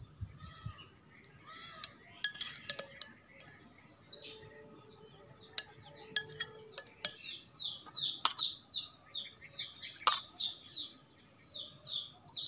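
Small birds chirping over and over, sparse at first and dense through the second half, with a few sharp metallic clinks on a steel mixing bowl.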